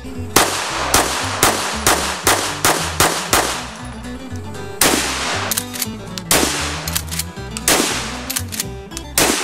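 Rapid handgun fire, about eight shots in three seconds, then four slower, heavier shots from a pump-action shotgun about a second and a half apart, each ringing out longer. Background music with a steady bass line runs underneath.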